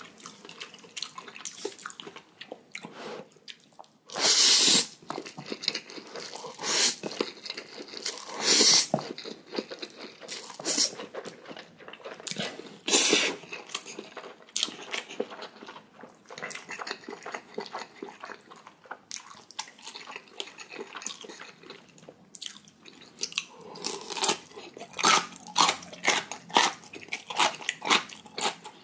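Close-miked eating of ramen noodles: chewing, with a few loud slurps, then a quick run of crisp crunching near the end, as of bites of chonggak radish kimchi.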